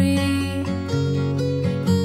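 Background music: a song with strummed acoustic guitar and held notes.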